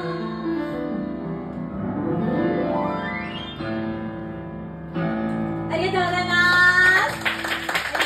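Keyboard chords ending a song, with a rising run of notes a few seconds in. Near the end a woman's voice holds a final sung note over the chords, and clapping starts about a second before the end.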